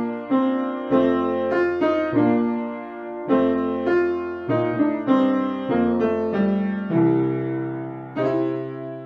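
Slow background piano music: a note or chord struck about once a second and left to fade before the next.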